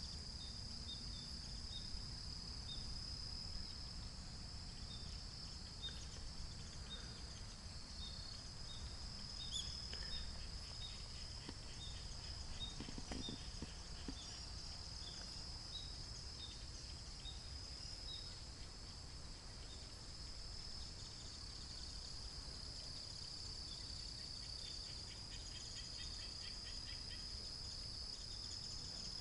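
Outdoor insect chorus: a steady high-pitched trilling with many short chirps over it, above a low rumble of wind and background noise.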